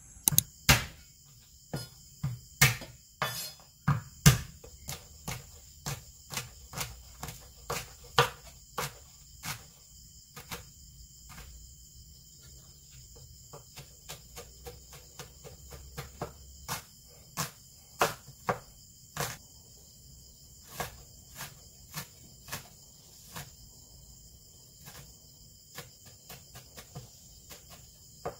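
Steady insect chorus in several high, unbroken tones, with a series of sharp knocks at irregular intervals, about one every half second to second. The knocks are the loudest sound and are strongest in the first few seconds.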